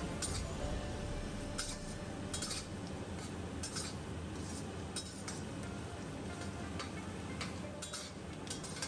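Metal spatula scraping and clinking against a stainless steel wok as shredded ginger is stirred in hot oil, with irregular sharp clinks about once a second.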